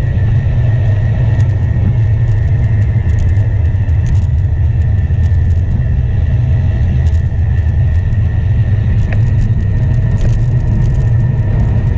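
Wind buffeting the microphone of a GoPro action camera mounted on a moving road bike's handlebars: a loud, steady rumble, with road and tyre noise and faint scattered ticks.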